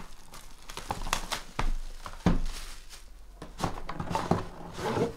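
Plastic shrink wrap crinkling and tearing as it is handled and pulled off an aluminium card briefcase, in irregular rustles, with a sharp knock a little over two seconds in.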